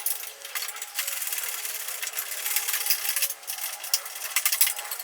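Power drill fitted with a socket spinning to tighten bolts, a steady motor whine under rapid clicking.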